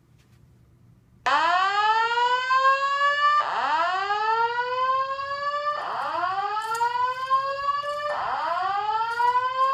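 Fire alarm evacuation speakers of a Simplex 4100U voice evacuation system sounding a loud whoop tone, starting about a second in: four rising sweeps, each quickly climbing in pitch and then levelling off, repeating about every two and a half seconds. This is the evacuation signal that comes before the spoken evacuation message.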